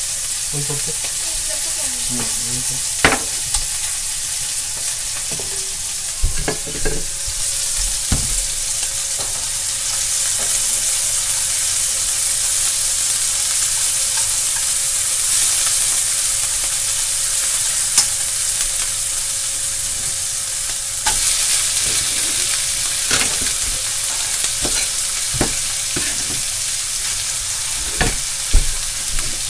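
Sliced meat, and later shredded cabbage, sizzling steadily in an oiled nonstick frying pan over a gas flame, stirred with long wooden chopsticks that click and scrape against the pan now and then.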